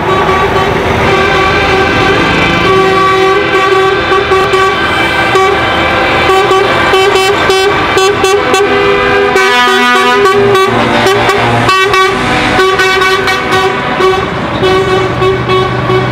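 Trucks driving past, sounding their horns in long held tones, with a run of short, quick toots about two-thirds of the way through over the running engines.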